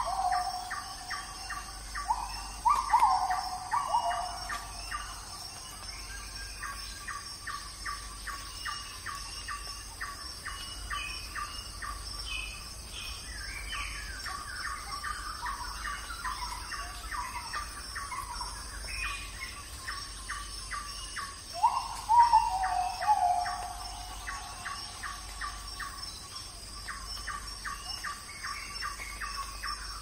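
Forest birdsong: a bird repeating short chirps in long rapid series, and a louder falling call a few times near the start and again about 22 seconds in. A steady high-pitched drone runs beneath.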